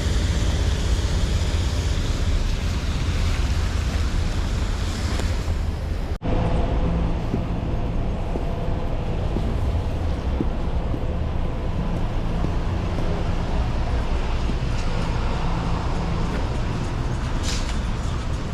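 Steady city street traffic noise with a low wind rumble on the microphone. The sound drops out abruptly for a moment about six seconds in.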